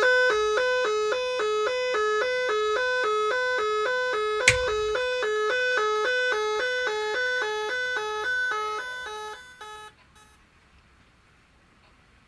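Magic 18 electronic musical car horn, its control module playing a tune through two horn-shaped speakers: two notes alternating quickly, about two and a half times a second. A sharp click comes about four and a half seconds in, and the tune stops after about ten seconds.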